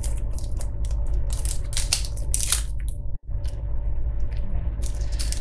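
Crinkling and rustling of a small clear plastic wrapper in irregular bursts as fingers handle a bobbin of thread, over a steady low hum. The sound drops out briefly about three seconds in.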